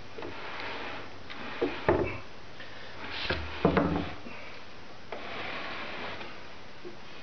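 Homemade wooden printing press being run: the plywood bed with its felt blanket rubbing and sliding past the roller, with two clusters of wooden knocks and clunks in the first half.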